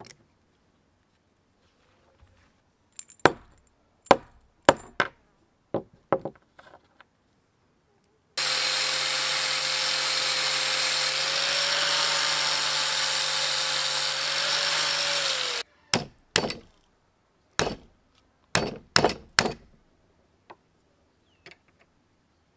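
A few sharp hammer blows on metal. Then an angle grinder runs for about seven seconds on the rusted crank handle of an old hand drill held in a vise, starting and stopping abruptly. It is followed by a quick series of hammer blows on a punch, driving at the handle's axle.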